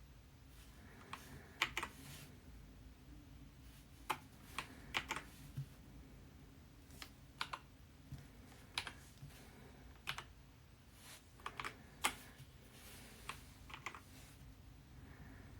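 KEMOVE K98SE mechanical keyboard with red linear switches being pressed: scattered, fairly quiet keystrokes, some in quick pairs or short runs, with pauses between them.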